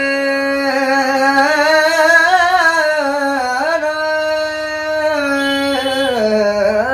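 A man singing a slow, ornamented melodic line, holding long notes and sliding between pitches, with a dip in pitch near the end.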